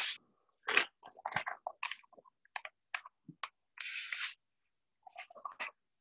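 Scattered clicks, taps and light scrapes of things handled on a tabletop as a glass fishbowl is moved into place, with one brief hiss about four seconds in.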